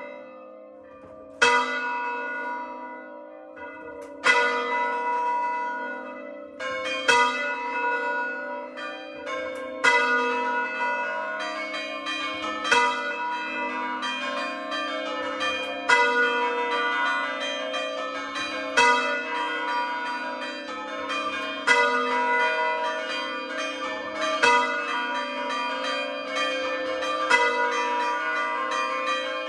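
Hand-rung church bells of a four-bell Italian concerto, the largest tuned to A3: two single strokes a few seconds apart, then from about seven seconds in the bells strike regularly, their tones overlapping and ringing on.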